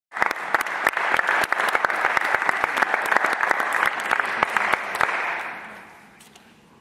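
Audience applauding, fading away about five and a half seconds in.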